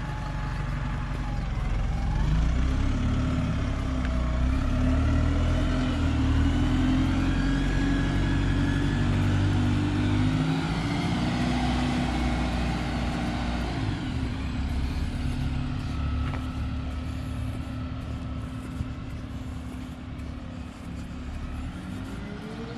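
Diesel engine of a single-decker bus pulling away up the road. It swells to a loud, steady run a couple of seconds in, then fades as the bus draws off.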